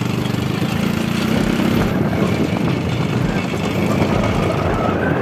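A vehicle's engine running steadily while riding along a rough dirt track, with a continuous rumble of tyre and road noise.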